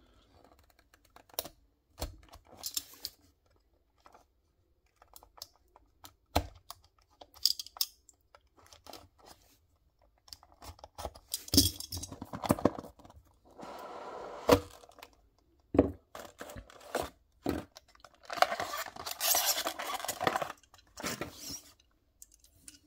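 A small cardboard box being opened: a knife slitting the sealing tape, then the flaps and plastic packaging handled, with scattered clicks and taps and bouts of tearing, rustling and scraping, the longest lasting about three seconds near the end.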